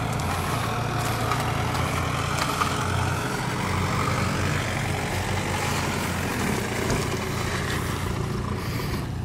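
BMW 328i E36's 2.8-litre straight-six idling steadily through a 3-inch HG aftermarket exhaust.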